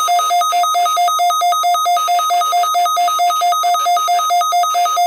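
Weather radio alert tone: a rapid, even electronic beeping at about five beeps a second, sounding to signal an incoming AMBER Alert for a child abduction emergency.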